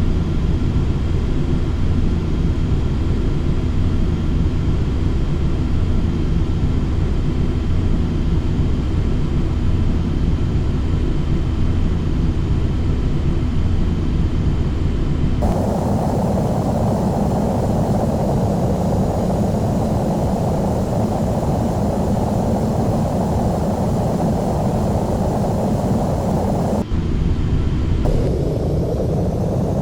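Steady jet engine and airflow noise of a Boeing 737-800 in flight, heard from inside the cabin, with a few faint steady tones over it. The sound changes abruptly about halfway through, becoming brighter, and changes again near the end.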